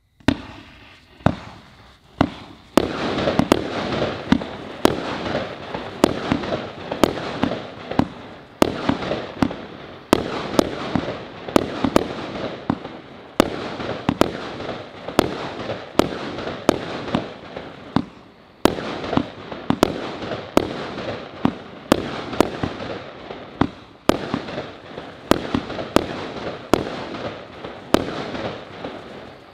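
A 25-shot, 25 mm-calibre firework battery firing: a sharp report roughly every three-quarters of a second, each followed by a noisy, crackling tail as the shells burst.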